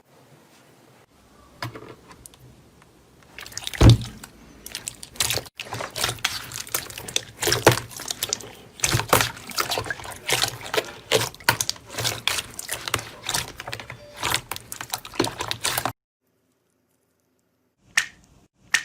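Slime being squished and pressed: a dense run of wet clicks, pops and crackles that stops suddenly, followed by two short sharp snaps near the end.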